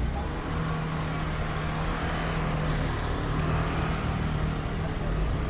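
Street traffic: a motor vehicle's engine running with a steady hum as it goes by, with tyre and road noise swelling about two seconds in.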